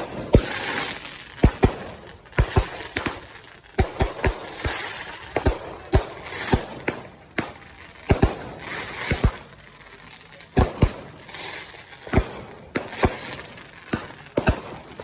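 Consumer fireworks going off: sharp bangs and pops at irregular intervals, one to three a second, over a hissing, crackling spray.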